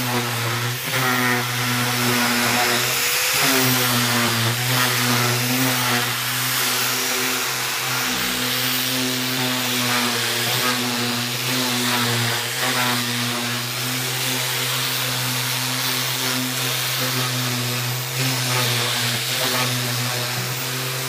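Handheld electric rotary sander with a dust-extraction hose running continuously while sanding weathered wooden shingle siding. The motor's pitch wavers as the pad is pressed into the wood, over a steady hiss.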